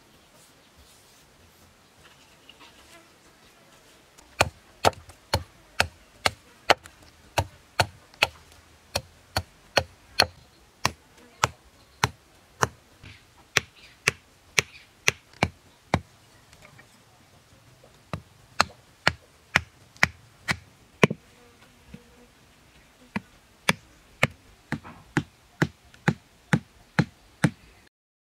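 Short wooden stakes being knocked down into the ground one after another: sharp knocks starting about four seconds in, roughly two a second, with a pause of about two seconds partway through.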